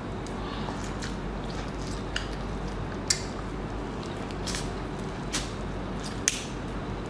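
Close-miked eating: biting into spice-coated king crab legs, with about five sharp crunchy clicks spread out over a steady low hum.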